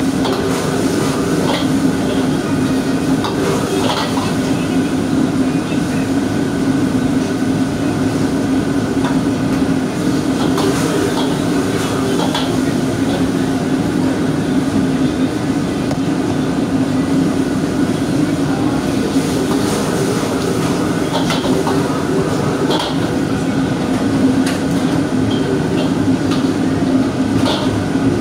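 Steady roar of a commercial wok range and its exhaust hood, with a constant hum underneath, and a metal utensil clanking against the wok now and then.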